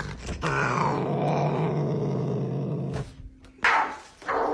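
A cat's low, steady growl lasting about two and a half seconds, then a brief pause and a short, louder burst of sound near the end.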